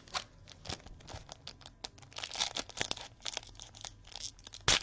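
Crinkling and tearing of a trading-card pack wrapper as it is handled and opened, made up of many short crackly clicks that grow busier about halfway through, with one sharper click near the end.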